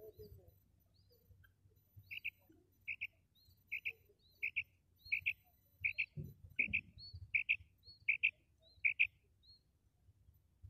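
Female common quail calling: a run of about ten short paired notes, evenly spaced at roughly one and a half a second, starting about two seconds in.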